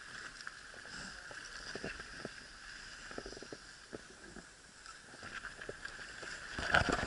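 Skis sliding and crunching over groomed snow, with scattered light clicks of poles. Near the end, a louder rough rustling noise comes in.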